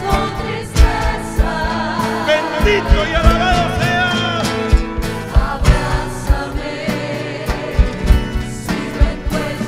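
Catholic worship music: voices singing a flowing melody over sustained accompaniment, with a regular low drum beat.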